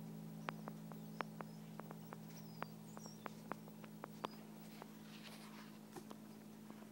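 Small birds at a seed feeder: irregular sharp clicks and taps, with a few short high chirps in the middle, over a steady low hum.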